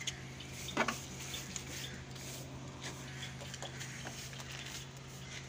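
Cloth being wiped and rubbed over a concrete floor and the edge of a pigeon cage, faint scraping and ticking, with one sharp knock a little under a second in, over a steady low hum.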